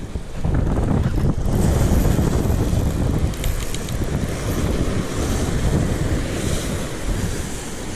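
Wind buffeting the microphone, with small waves washing against the rocks of the jetty.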